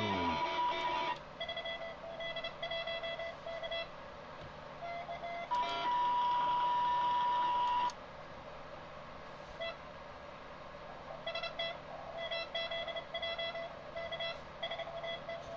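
Morse code (CW) received on an Oak Hills Research OHR 100A QRP transceiver and fed through a Timewave DSP-9 audio filter: short keyed beeps over a steady hiss. A louder, higher steady tone sounds for about a second at the start, then again for about two seconds near the middle, and each time cuts off suddenly.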